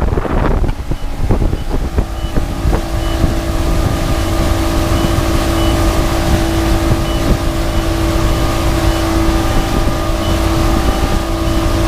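Motorboat running fast under power, its engine settling to a steady pitch about two seconds in, with wind and rushing water around it.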